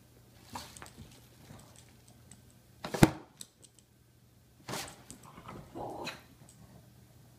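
Plastic lid of a Diaper Genie diaper pail clacking: a loud sharp clack about three seconds in and another near five seconds as the lid springs open, with lighter clicks and ticks around them.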